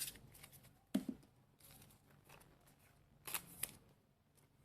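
Faint handling of trading cards and booster pack wrappers: a sharp tap about a second in and a short rustle a little past three seconds.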